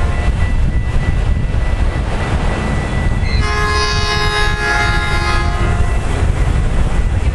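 Diesel locomotive's air horn sounding as an EMD F59PH-led commuter train approaches: the end of one blast right at the start, then one long blast from about three and a half to six seconds in, over a steady low rumble.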